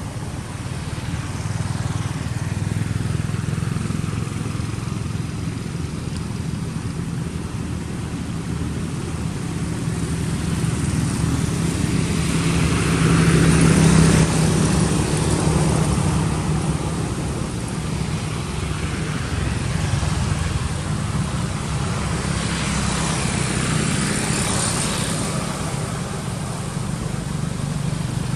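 Road traffic: a steady low rumble of vehicles, with one passing loudest about halfway through and another a few seconds before the end.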